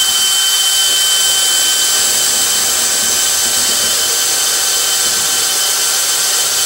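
DeWalt cordless drill running at a steady speed, its wood bit boring a hole through a wooden beam, with a steady high whine.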